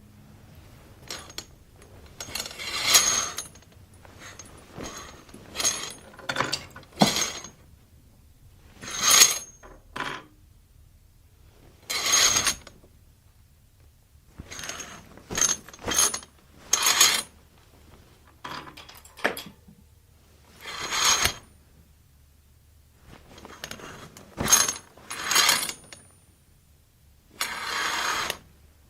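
A curtain being drawn back and forth along its rod over and over. It gives a dozen or so short sliding swishes with sharp clicks among them, separated by brief pauses.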